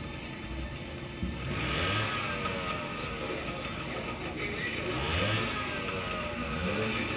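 Several scooter engines idling and being revved, their pitch rising and falling, louder from about a second and a half in.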